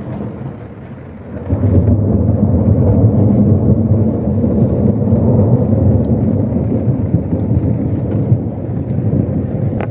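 Thunder rolling: a loud, low rumble that swells in about a second and a half in and keeps going.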